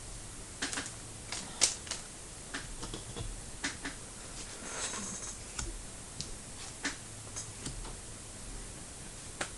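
Trading cards and their packs being handled: irregular light clicks and rustles as cards are shuffled and a pack is opened, with one sharper click about one and a half seconds in.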